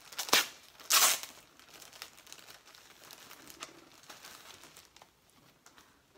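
The wrapping of a pack of yarn balls being torn open: two loud rips about a second apart near the start, then quieter crinkling as the wrapping is pulled off the balls.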